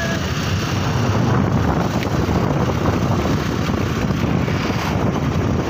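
Steady rush of wind buffeting the microphone on a moving motor scooter, with the scooter's engine and road noise underneath, unchanging throughout.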